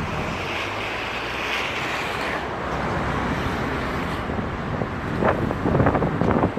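Steady outdoor rumble of traffic, with wind buffeting the microphone and a few short knocks in the last second or two.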